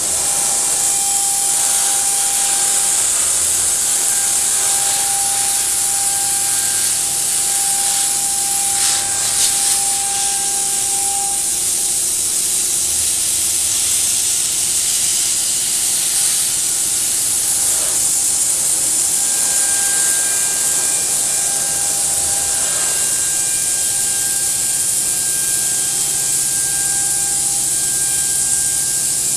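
CNC milling-engraving machine running: a steady high hiss from the spindle and cutter, with a pitched whine that comes and goes as the machine works.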